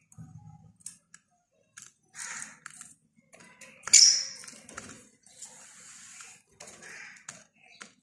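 Small caged birds chirping in short, separate calls, with one sharp, loud sound about halfway through.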